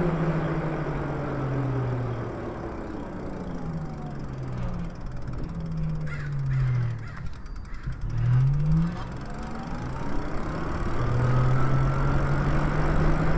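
Lyric Graffiti e-bike's electric motor whining, its pitch falling twice as the regen braking slows the bike, then rising again as the bike speeds back up. A steady rushing noise runs underneath.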